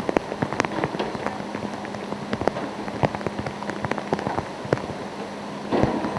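Heavy hurricane rain falling, with many separate drops striking close by over a steady wash of noise. A louder rush of noise comes near the end, and a faint steady hum runs underneath.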